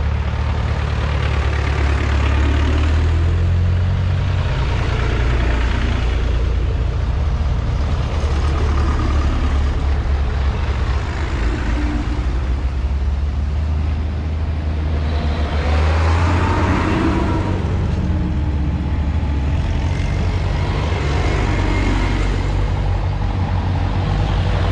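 Vintage tractor engines running as a line of tractors drives past one after another, the sound swelling several times as each one comes close.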